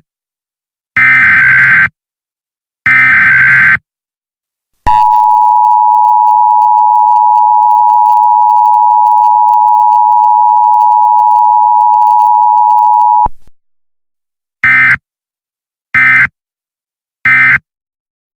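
Emergency Alert System tones: two SAME header data bursts of about a second each, then the two-tone attention signal, a steady dual tone near 850 and 960 Hz held for about eight seconds and cut off sharply, then three short data bursts like the end-of-message code.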